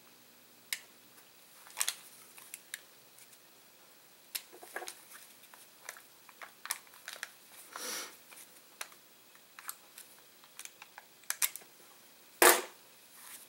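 Gloved hands handling and pulling apart the taped foil pouch cells of a DJI Phantom 4 drone battery: scattered small clicks and crinkles, a brief rustle about eight seconds in, and a sharp knock near the end.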